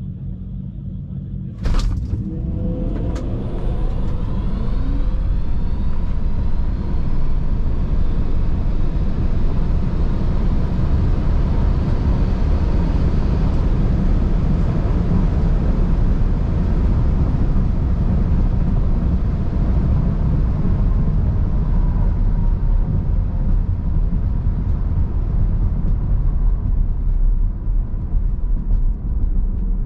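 Tesla Model 3 Performance launching hard down a drag strip, heard from inside the cabin: a sharp knock as it leaves the line, then the electric motor whine rising in pitch as it accelerates, over loud tyre and wind noise. The noise eases near the end as the car slows.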